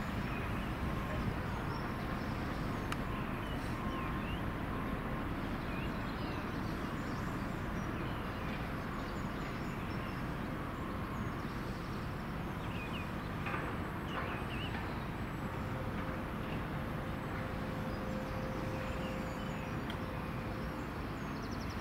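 Irish Rail 22000 Class diesel multiple unit running away into the distance, a steady low rumble, with a few bird chirps around the middle.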